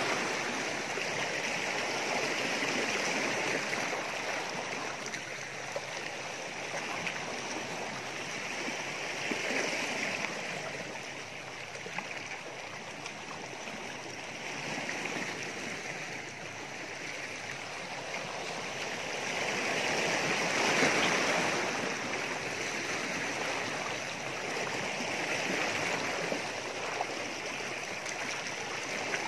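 Small sea waves washing against shore rocks: a steady rush of water that swells and eases every five seconds or so, loudest about twenty seconds in.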